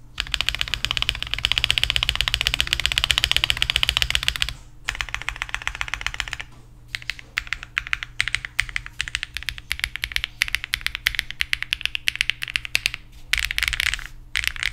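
Typing on a KBDfans Tofu65 2.0 custom mechanical keyboard with HMX Canglan V2 switches, GMK Handarbeit R2 keycaps, a polycarbonate plate and full foam: a fast, dense run of keystrokes, brief pauses about four and a half and six and a half seconds in, then more spaced keystrokes and another quick burst near the end.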